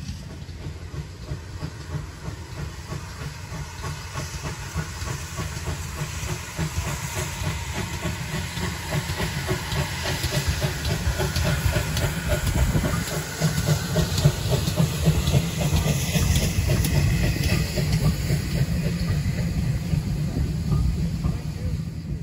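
GWR 6400 class pannier tank locomotive 6412 steaming past with an auto coach, its exhaust beating in a fast, even rhythm over a hiss of steam. The beats grow louder until about the middle, hold, and fall away near the end.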